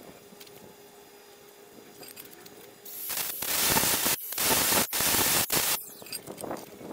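Cordless angle grinder with a wire wheel brushing along a steel box-section tube: a loud, harsh hiss about three seconds long, starting about three seconds in, with a few brief drop-outs before it stops.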